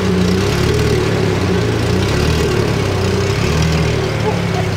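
Pagani Zonda F Roadster's 7.3-litre Mercedes-AMG V12 idling steadily through its quad-tip centre exhaust.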